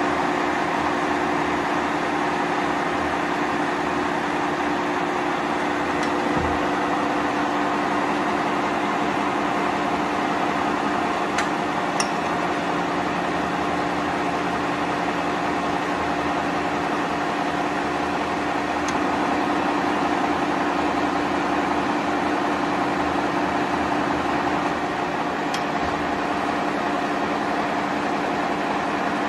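Bullard Cutmaster 54-inch vertical turret lathe running: a steady mechanical hum with a few held tones in it. A few faint clicks sound over it.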